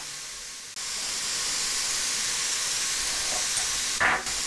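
Poultry breast fillets sizzling in a hot electric contact grill: a steady hiss that gets louder about a second in. A brief sound cuts in near the end.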